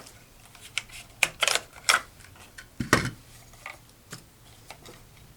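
A series of sharp mechanical clicks and clacks from an FN SCAR rifle being handled and cleared to check that it is unloaded, the loudest and heaviest clack about three seconds in.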